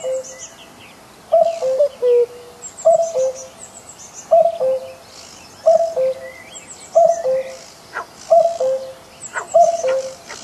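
Common cuckoo calling its two-note "cu-ckoo", a higher note falling to a lower one, repeated steadily about every second and a half, eight times. Small songbirds twitter faintly and high-pitched in the background.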